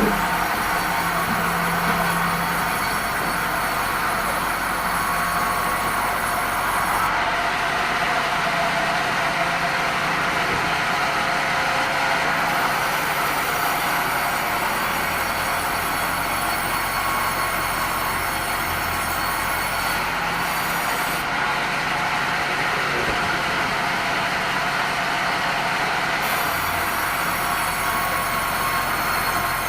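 Sawmill band saw cutting red meranti timber: a steady, continuous sawing noise. The highest hiss thins out twice for a few seconds.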